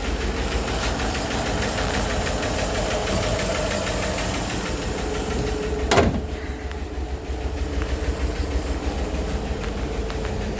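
2011 Chevrolet Avalanche 1500's V8 engine idling steadily, with a single sharp clack about six seconds in.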